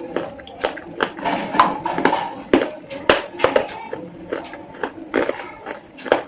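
Slate pencils being bitten and chewed, with sharp, unevenly spaced crunches about twice a second.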